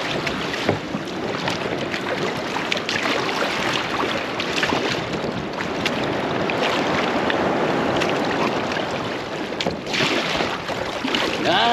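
Steady rushing noise of wind and water, with scattered small knocks and splashes.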